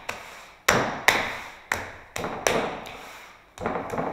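Bare hands slapping a lump of wet modelling clay, about seven sharp slaps under a second apart, beating it into a compact block to press the air out before it is bagged for storage.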